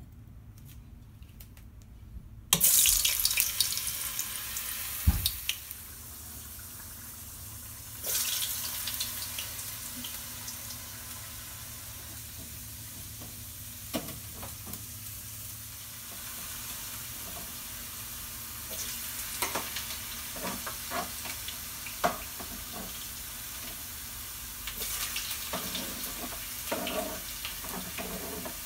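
Hot vegetable oil sizzling in a frying pan as batches of raw cut potato sticks are dropped in: a sudden loud burst of sizzle about two and a half seconds in that fades, another about eight seconds in, and a third near the end, with a steady sizzle and light clicks and knocks in between.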